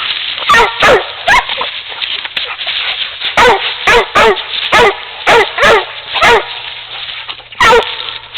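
Coon dogs barking at a raccoon they are fighting: about ten short, loud barks in uneven groups, each dropping in pitch, with a pause of about two seconds near the start and a longer gap before the last bark.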